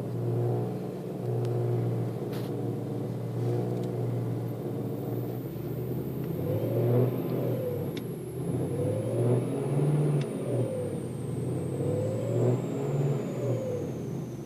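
BMW M3 making a groaning sound: a steady low drone with several overtones. About halfway through it starts to waver up and down in pitch and swell in level.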